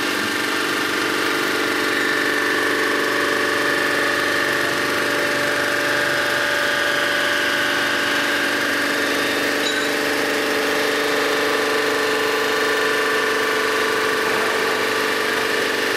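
Sunnen HBS-1300 cylinder-head resurfacing machine running steadily with a hum of several held tones, its cutter taking an oiled finish pass across the deck of an aluminium Volvo 240 cylinder head.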